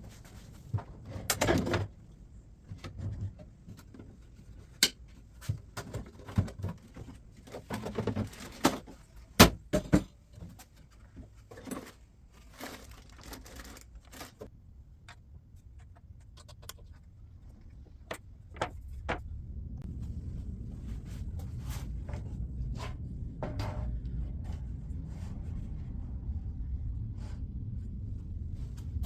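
Irregular knocks, clacks and rattles of boards and tools being handled and set down in a small workshop, the loudest knock about nine seconds in. After about twenty seconds a low steady rumble sets in beneath a few light taps.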